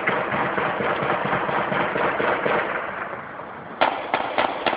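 Dense, rapid crackle of sharp reports for about three and a half seconds, fading somewhat, then several separate louder bangs near the end. The people there take it for celebratory automatic gunfire.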